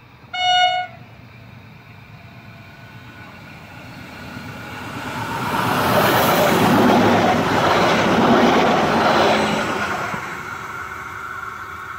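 Baselland Transport Stadler Tango tram sounds one short blast of its horn, then runs past: its running noise rises as it approaches, is loudest as it goes by, and fades away.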